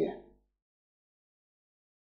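Near silence: a man's word trails off in the first half-second, then dead silence with no other sound.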